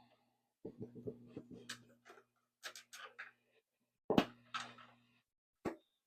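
1980s Embassy boombox's speakers giving a low hum that cuts in and out, with scratchy clicks and crackles as its controls are handled, twice starting with a sharper click. The intermittent sound fits the boombox's really bad volume control.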